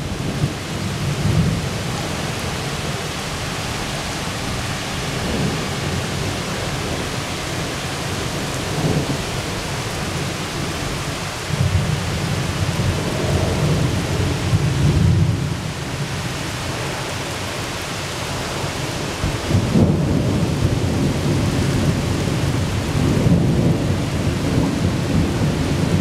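Thunderstorm: steady rain with rolling thunder, the low rumble swelling several times, most strongly past the middle and again over the last few seconds.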